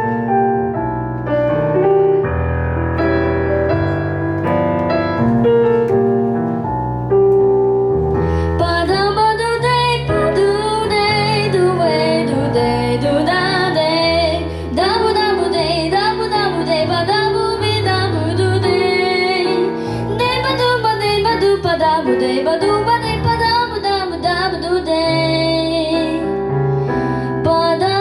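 Pop song with a keyboard backing track: an instrumental passage, then from about eight seconds in a girl's singing voice comes in over a fuller accompaniment.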